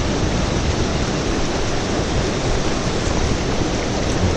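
Fast-flowing river pouring over falls: a steady, loud rush of water.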